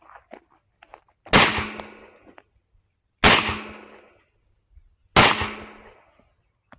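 Three shots from a Taurus .357 Magnum snub-nosed revolver, about two seconds apart, each followed by a short echo that dies away.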